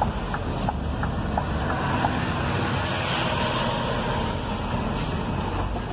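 Truck driving along, heard from inside the cab: steady engine and road noise with some wind.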